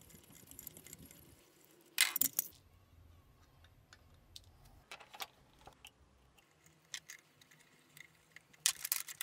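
Metal clinks and clatter of hand tools and a drilled aluminium block being handled at a steel bench vise. There is a sharp clatter about two seconds in and another near the end, with a few lighter ticks between.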